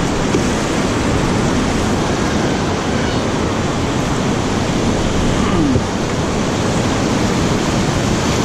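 Steady rush of whitewater rapids churning around an inflatable raft.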